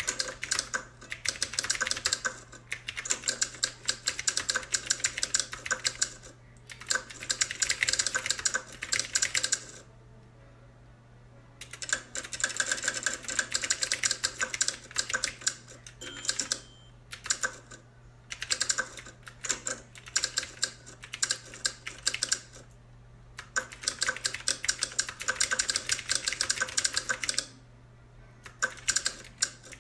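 Typing on a typewriter-style mechanical keyboard: fast runs of sharp key clicks lasting several seconds each, with short pauses between runs. A steady low hum lies underneath, and a brief high tone sounds once about halfway through.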